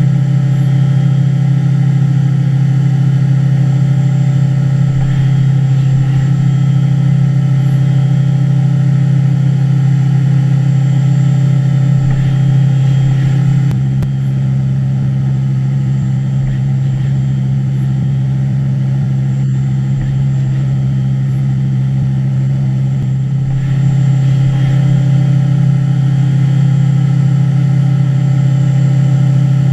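Haas five-axis CNC mill running a finishing cut: a steady machine hum with overtones and a high whine. About halfway through, the tone shifts and drops slightly in level for roughly ten seconds, then returns to the first steady sound.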